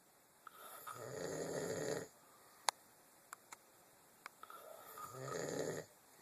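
A man snoring in his sleep: two long snores about four seconds apart, each growing louder over a second and a half and then stopping abruptly, with a sharp click between them.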